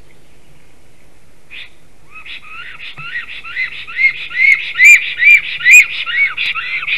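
Black stork singing: a run of arched, whistled notes, about three a second, starting about two seconds in and growing loud.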